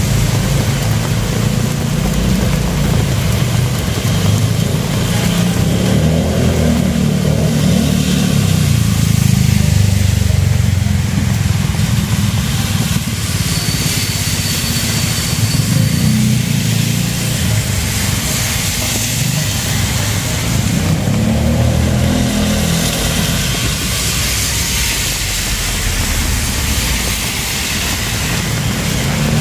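Rainy city street ambience dominated by traffic: vehicles rumbling past in overlapping waves over a steady hiss of tyres and rain on the wet road.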